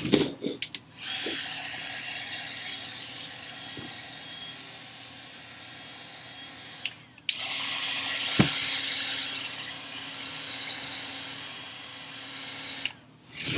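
Ryobi heat gun's fan blowing hot air, a steady hiss heating the adhesive strips under a laptop LCD panel to loosen them. It cuts out briefly with a couple of clicks about seven seconds in, then runs again, a little louder, until shortly before the end.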